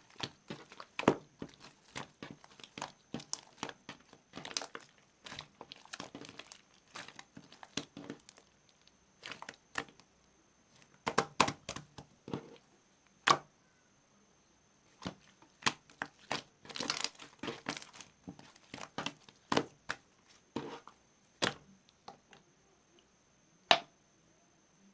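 Slime being squeezed, stretched and poked by hand, giving irregular sticky crackles and pops. A few louder snaps stand out, with short pauses between handfuls.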